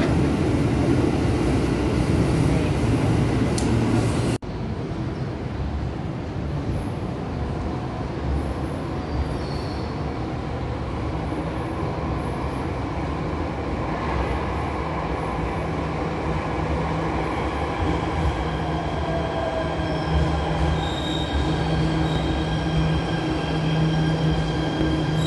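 An electric commuter train running past along a station platform, loud, cut off abruptly about four seconds in. Then a quieter station hum as an MRT Jakarta train pulls in behind platform screen doors, with a low steady drone and several high steady tones building over the last ten seconds or so.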